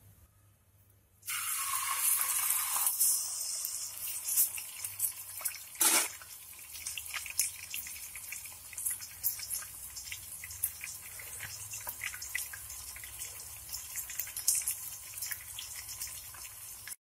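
Hot cooking oil sizzling as a whole pomfret is laid into a nonstick wok: a sudden loud sizzle about a second in, easing after a couple of seconds into steady frying with frequent crackles and pops of spattering oil.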